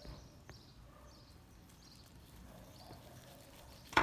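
Homemade glue-and-shaving-foam slime being stirred and kneaded in a bowl: faint, repeated sticky clicks and pops, with one sharp smack right at the end.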